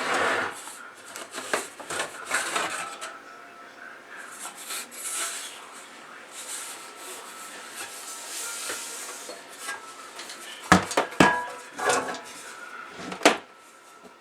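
Clinks, knocks and rubbing of an old CB radio's metal chassis and cover being handled, with a cluster of sharp knocks toward the end.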